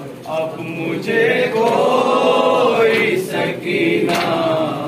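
Men chanting an Urdu noha, a Shia mourning lament, with no instruments: a lead voice in long, wavering held notes, with other voices joining as a chorus.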